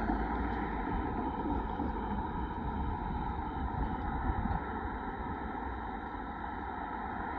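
Steady low rumble of idling diesel locomotives, with a car passing on the road.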